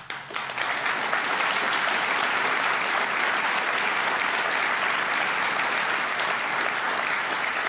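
An audience applauding: many hands clapping, swelling over the first second and then holding steady.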